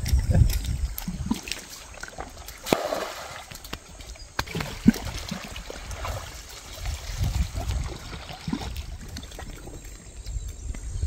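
Shallow river water splashing and trickling as a wet cast net is hauled up and water streams off it, with uneven low rumbling gusts coming and going.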